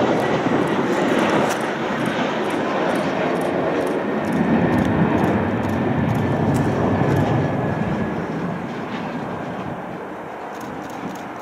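A Fokker 70 airliner's two Rolls-Royce Tay turbofan engines on landing: a loud, steady jet rush with a faint high whine, easing off over the last few seconds as the plane goes past.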